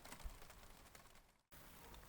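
Near silence: faint room tone with a few soft clicks and ticks, cutting out to dead silence for a moment a little past one second in.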